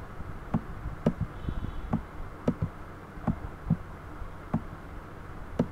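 Computer mouse button clicking, about eight short clicks at uneven intervals, as it draws pencil strokes, over a low steady hum.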